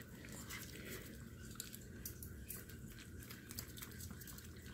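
Maltese dog licking and chewing the soft flesh of a ripe persimmon held in a hand: faint, irregular smacks and clicks.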